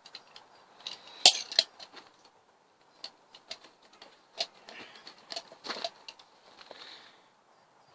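Irregular sharp clicks and taps of a caulking gun and hand work while clear silicone sealant is applied, loudest about a second in, with a brief soft hiss near the end.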